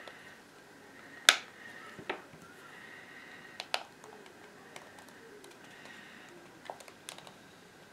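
Plastic pry tool being worked into the seam of an iPod Classic's case, giving a few sharp clicks as the tool and case edges snap and catch, the loudest a little over a second in.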